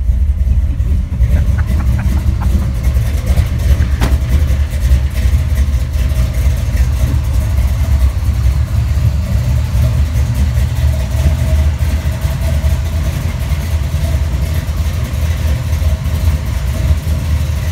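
Dodge Dakota race truck's engine idling loudly, a deep, choppy exhaust note that holds steady throughout.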